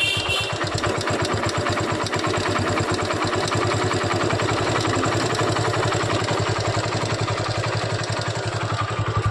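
Honda 110cc single-cylinder four-stroke motorcycle engine idling on the stand with a steady, rapid, even pulse, freshly rebuilt top end. It carries an engine noise that is heard at idle but goes away when the throttle is opened, and whose cause the mechanic has not yet found.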